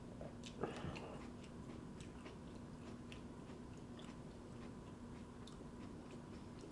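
A person chewing a mouthful of raw tomatillo, faint mouth clicks, with one louder bite sound just under a second in. A steady low hum runs underneath.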